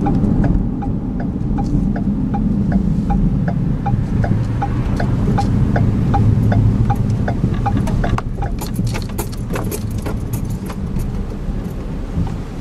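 Car driving, with steady low road and engine rumble heard from inside the cabin. Over it, a regular light ticking about three times a second stops about eight seconds in, then a few scattered clicks follow.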